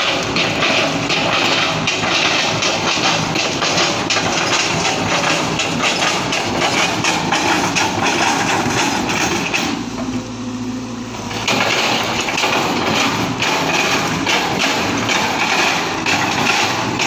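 Cat 320GC hydraulic excavator at work: its engine running under a continuous rough clatter and scraping of steel on earth and rock. About ten seconds in the clatter stops for a second or so, leaving only the engine's steady hum, then it starts again.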